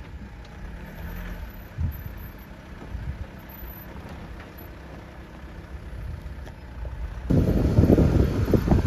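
Off-road vehicle engine running at low revs, a low rumble with an occasional knock. About seven seconds in, the sound jumps suddenly to loud wind buffeting on the microphone.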